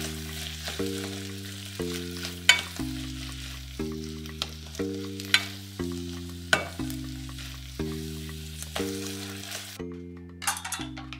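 Ground beef with bell peppers and onion sizzling in a nonstick saucepan while a spatula stirs it, with a few sharp clicks of the spatula against the pan. The sizzle cuts off near the end. Background music with chords changing about once a second plays underneath.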